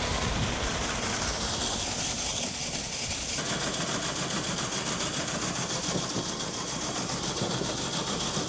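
Tractor engine running steadily while pulling an air seeder, with a constant hiss over it.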